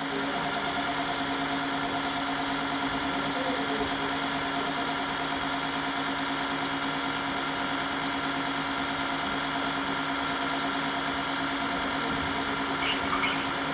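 Tineco wet-dry floor-washing vacuum running its self-cleaning cycle in the charging dock: a steady motor hum with several constant whining tones.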